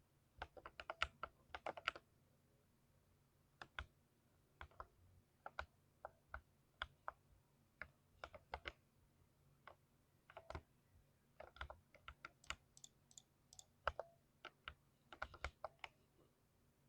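Typing on a mechanical keyboard with lubed switches: sharp, separate keystrokes at an uneven pace, a quick run at first, a short pause about two seconds in, then scattered strokes and small flurries.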